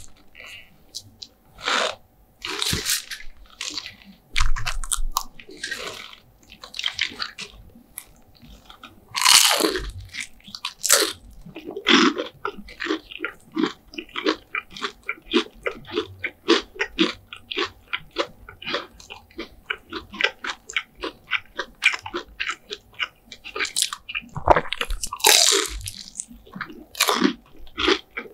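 Crunchy eating of crispy KFC fried chicken: a few loud crunching bites, then from about eleven seconds in steady crunchy chewing at about three chews a second.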